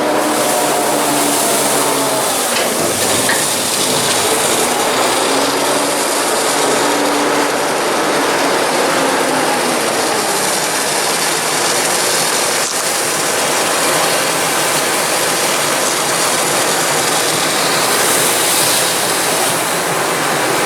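Heavy farm machinery working at maize harvest: a loud, steady mechanical rush and rattle, with an engine note that rises and falls during the first few seconds.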